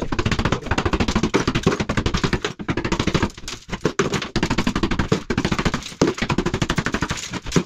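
Hammer and chisel knocking old tiles off a plasterboard wall: a fast, dense run of knocks and cracks, easing off briefly about three and a half seconds in and again at six seconds.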